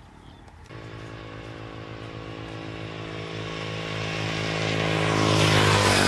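A pickup truck's engine approaching along the road, starting abruptly about a second in and growing steadily louder, loudest as it passes close by near the end.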